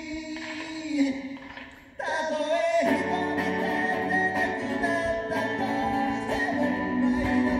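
A man singing live while strumming an acoustic guitar. The music fades to a brief lull, then the strumming and singing come back in suddenly about two seconds in.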